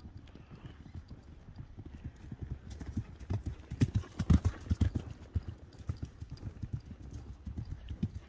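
Hoofbeats of a Tennessee Walking Horse mare moving at a brisk gait over dry grass: a quick run of dull thuds that grows loud as the horse passes close about four seconds in, then softer.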